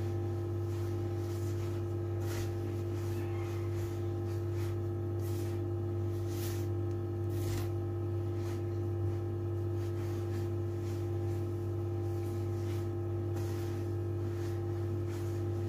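Hands rubbing and tossing a crumbly sellou mixture in a large bowl, giving soft irregular rustles, over a steady low hum.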